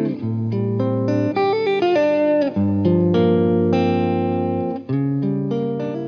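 Background music: held chords that change every second or so.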